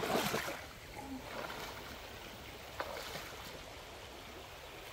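Shallow river running, a steady rush of water. There is a brief louder splash-like burst at the very start and a single short knock about three seconds in.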